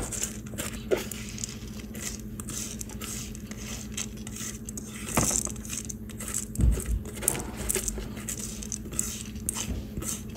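Wet soaked sticky rice pouring and pattering into a glass baking dish, with irregular small clicks and scrapes as the grains are pushed along the glass by hand and spatula.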